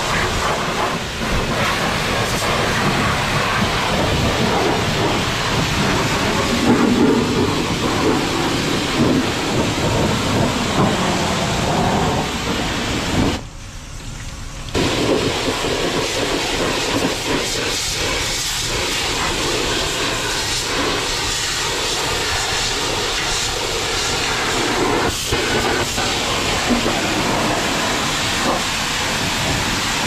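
A coin-operated pressure washer's high-pressure water jet hissing as it blasts a snowplow blade and truck front, splashing onto the wet concrete as it washes off road salt and grime. The spray drops away for about a second and a half partway through, then resumes.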